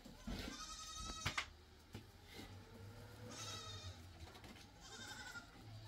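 Goats bleating, three quavering calls: about half a second in, around three and a half seconds, and again around five seconds.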